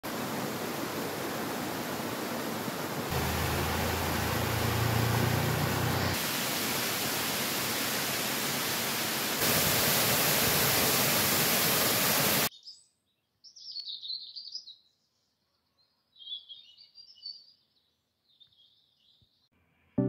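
Waterfall water falling and splashing into a pool, a steady rushing noise that changes level at each cut. About twelve seconds in it stops abruptly, leaving small birds chirping in three short spells over near silence.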